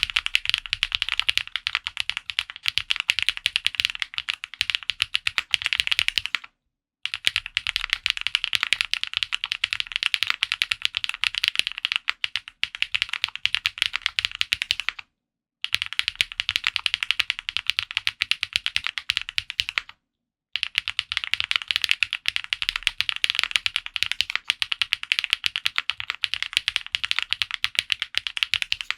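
Fast typing on a Space65 R3 custom mechanical keyboard with Gateron Raw switches: a dense stream of keystroke clacks, broken three times by brief silences.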